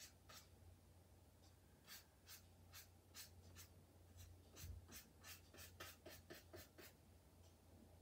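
Faint, quick strokes of a wet watercolor brush across paper, repeated irregularly and coming faster in the second half, as plain water is washed outward over painted color.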